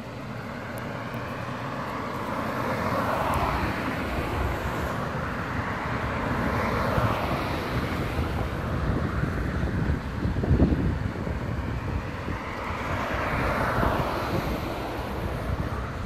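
Strong typhoon wind blowing in gusts that swell and ease several times, over the low rumble of a yellow JR West 115-series electric train creeping away slowly along the line.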